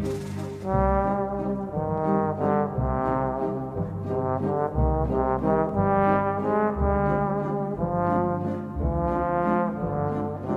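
Instrumental background music: a melody of held notes, each lasting up to about a second, over a pulsing bass line.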